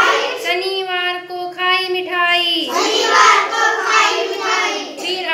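A group of young children singing a Hindi days-of-the-week rhyme in unison, drawing some notes out long and steady.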